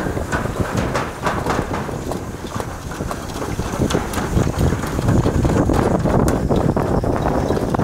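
Toboggan sled rumbling down its slide track, with scattered rattles and clacks and wind buffeting the microphone.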